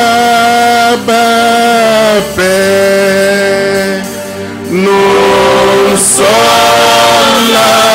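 A man singing a slow worship chant into a microphone. He holds long notes in about four phrases, with brief breaks between them.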